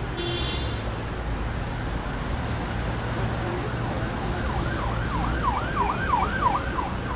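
Intro-animation sound effects: a steady low rumble, joined about four and a half seconds in by a siren-like warbling tone that rises and falls about six times in two seconds.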